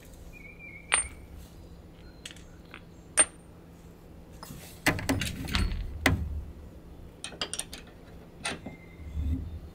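Two sharp metallic clinks of tools or hardware being handled, then a run of dull knocks and scuffing as a person moves about under the trailer.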